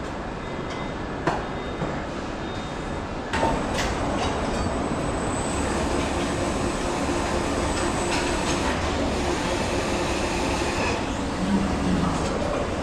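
Car assembly line machinery running: a steady mechanical hum of conveyors and carriers with a few sharp metallic clanks. It gets louder about three seconds in.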